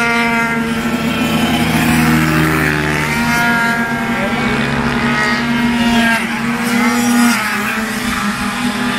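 Several small racing scooter and pit-bike engines running hard on the circuit, overlapping. Their pitch rises and falls as the riders open and close the throttle going past, over one engine note that holds steady.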